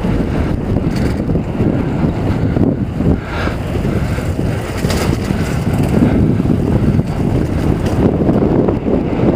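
Wind buffeting the microphone of a helmet-mounted camera on a moving mountain bike, a steady low rushing with the bike's rolling rumble and a few light knocks over the pavement.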